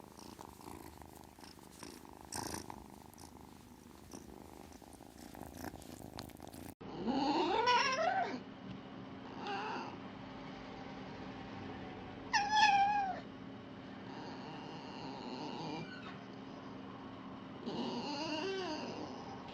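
Domestic cat purring softly, then, after an abrupt cut, a cat meowing several times in drawn-out, rising and falling calls.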